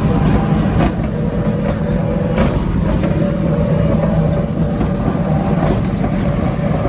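Steady engine and road noise from on board a moving road vehicle: a continuous low drone with no change in speed.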